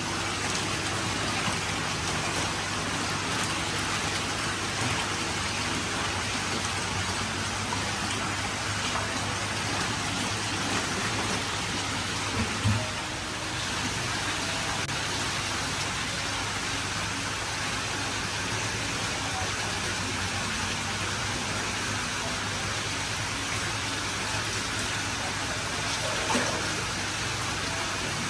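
Steady rush of water pouring from inlet pipes into koi holding tanks, with a couple of brief louder splashes as koi are handled in a tub of water.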